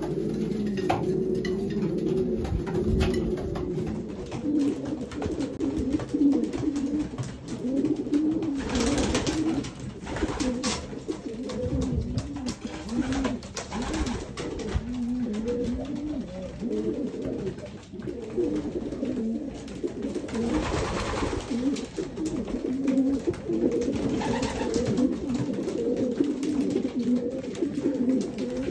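Racing pigeon cocks cooing to their hens, many calls overlapping without a break, in a small loft with a few brief rustling bursts among them.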